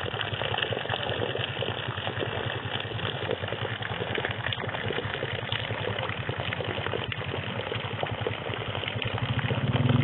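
A thin stream of rainwater pouring into a muddy puddle, splashing steadily with a fast flutter, with rain falling on the water. Near the end a low hum grows louder.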